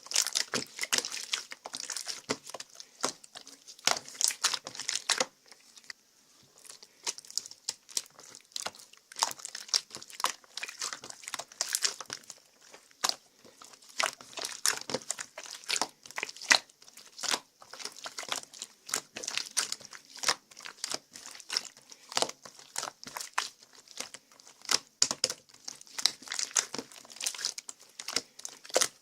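Irregular crinkling and crackling: many small sharp clicks in quick succession, easing off briefly about six seconds in.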